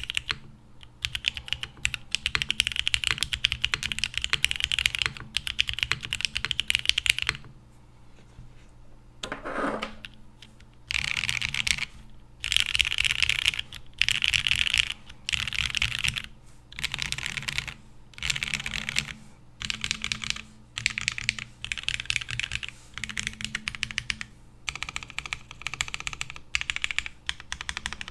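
Fast typing on a Geonworks Frog TKL custom mechanical keyboard fitted with Cherry MX Hyperglide Black linear switches, lubed on the stem only so they keep their scratchiness, and GMK keycaps. The keystrokes come in runs of a second or two with short pauses, and there is a longer lull about a quarter of the way through.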